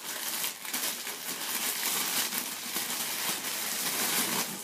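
Clear plastic packaging crinkling continuously as it is handled by hand to unwrap a disposable hookah hose.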